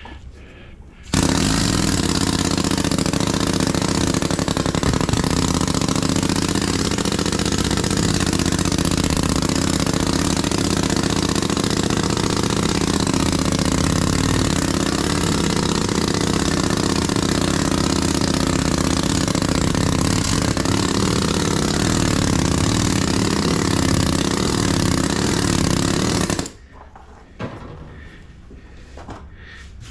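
Pneumatic sand rammer running on compressed air, hammering molding sand tight into a wooden foundry flask. It starts about a second in, runs steadily, and stops near the end.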